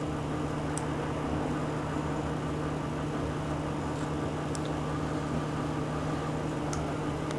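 Steady machine hum with a low, unchanging tone and an even hiss, as from a running fan or air-handling unit; a few faint ticks.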